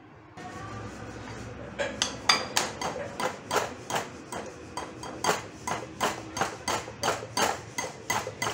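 Steel wire whisk beating butter and powdered sugar in a glass bowl. After a softer scraping start, the wires clink against the glass with each stroke, about three times a second.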